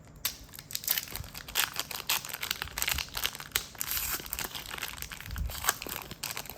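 Crinkling of a trading-card booster pack's wrapper being handled, a busy run of quick crackles and rustles.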